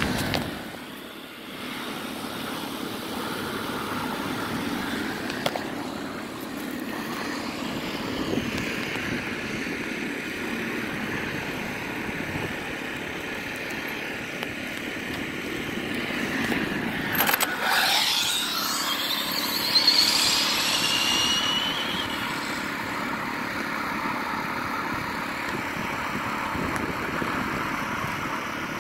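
Steady outdoor background noise. A little past halfway, a high whine sweeps sharply down in pitch, followed by a few seconds of high tones sliding downward, typical of an Arrma Typhon 6S RC buggy's brushless motor passing at speed.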